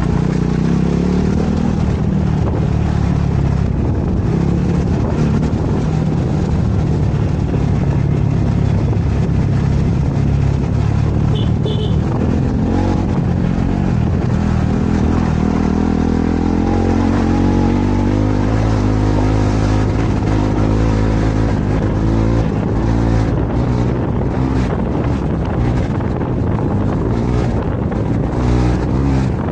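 KTM 390 Adventure's single-cylinder engine running under way, its pitch rising and falling with the throttle, with wind buffeting the microphone near the end.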